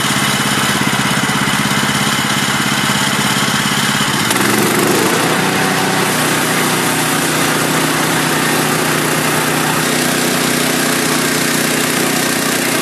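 Small gasoline engine of a portable sawmill running steadily at a constant speed, with a dense hiss over it; about four seconds in, its note shifts and then holds.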